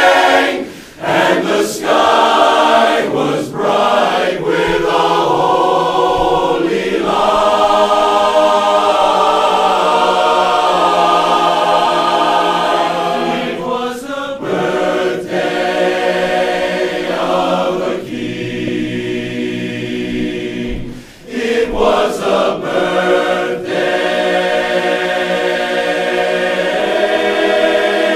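Large men's barbershop chorus singing a cappella in full close harmony, with short breaks between phrases about a second in and again near the 21-second mark.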